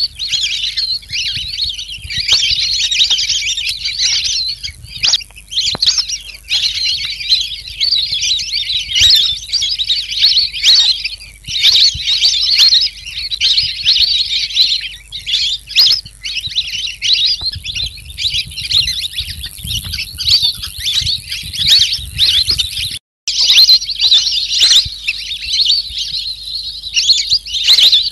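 Pikikat alis kuning songbird chattering in fast, high trills and chirps, almost without pause. The sound cuts out briefly about four-fifths of the way through.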